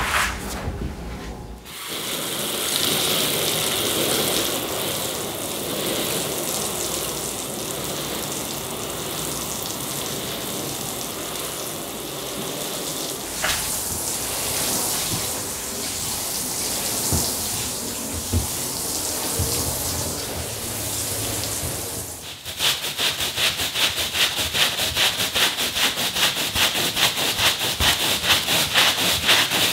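A squeegee pushes water off a wet rug for the first couple of seconds. Then an acidic rinse is poured over the rug from a watering can, a steady splashing stream that lasts about twenty seconds. Near the end a stiff-bristled push broom starts scrubbing the wet rug pile in quick, even strokes, brushing the rinse in.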